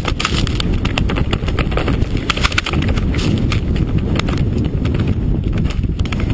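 Snowmobile riding down through snow, heard from a camera on the rider: a steady, loud low rumble of machine and wind buffeting, crossed by many irregular clicks and knocks.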